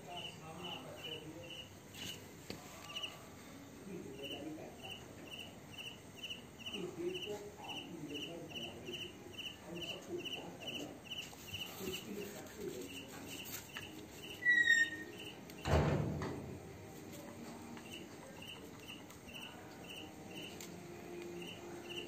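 A cricket chirping steadily in the background, about two to three short high chirps a second. A brief squeak rises over it about two-thirds of the way in, followed at once by a loud rustling thump lasting about a second.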